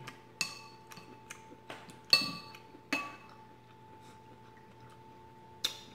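Spoon clinking against a ceramic soup bowl, four short ringing clinks, the loudest about two seconds in, with faint scraping in between.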